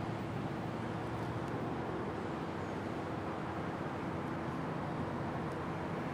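Steady rumble of a distant Amtrak train with an AEM-7 electric locomotive as it runs away along the track, with a faint steady hum.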